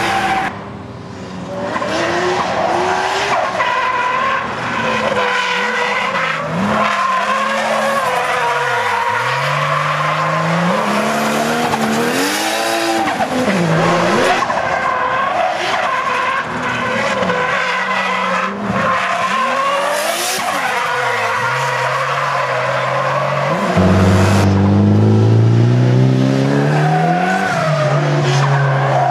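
Drift cars sliding through corners: engines revving up and down hard, rising and falling every second or two, with tyres squealing. About two-thirds of the way through, the engine note becomes louder and deeper.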